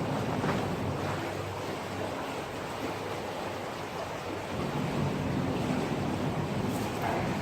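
Steady rushing of a river's flowing water, with wind on the microphone.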